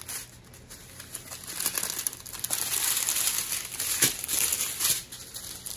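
Crinkling and crackling of the plastic wrap on a strip of sealed diamond-painting drill bags as it is handled and unrolled, growing louder about a second and a half in.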